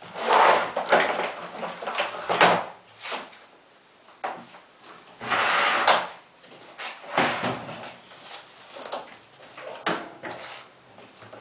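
Irregular scraping, rubbing and knocking of washing-machine parts being handled and worked on by hand, in short bursts with pauses between.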